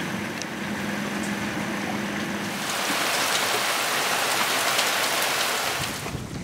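Rain falling steadily, with a faint low hum under it at first; about two and a half seconds in the rain grows louder and denser, then eases near the end.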